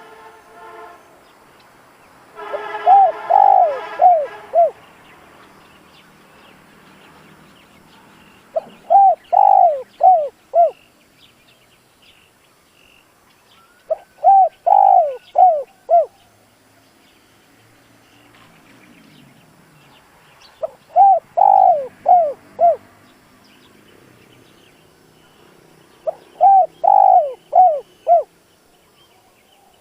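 Spotted dove singing its cooing song: five phrases of about four or five notes each, repeated roughly every six seconds.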